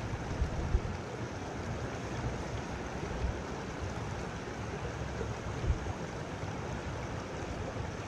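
Shallow creek water rushing steadily over a stony riffle, with a few brief low bumps on the microphone.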